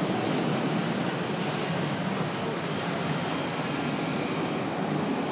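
McDonnell Douglas DC-10-30 climbing out after takeoff: steady jet noise from its three General Electric CF6-50 turbofans at climb power, easing slightly as the airliner moves away.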